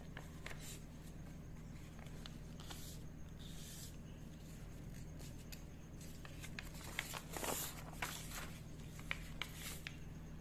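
Paper pattern sheets rustling and crinkling as hands handle them, with scattered light clicks and the loudest rustling about seven to eight seconds in, over a steady low hum.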